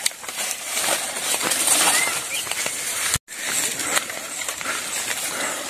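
Rustling and crackling of a bundle of dry sticks carried on the shoulder, brushing against leaves and the phone as the carrier walks. The sound cuts out for a moment about three seconds in.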